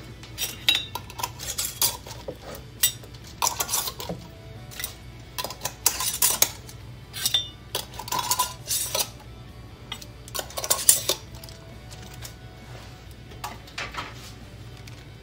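Glass pint canning jars with metal lids and rings clinking and knocking as they are lifted off the counter and set down one after another into a pressure canner: a string of irregular clinks, some ringing briefly.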